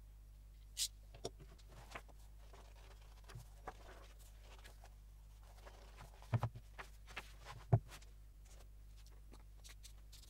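Paper and a bound book block being handled on a workbench: scattered light rustles and knocks, a quick cluster of taps about six seconds in, and a soft thump just before eight seconds in as the block is set down on a cutting mat.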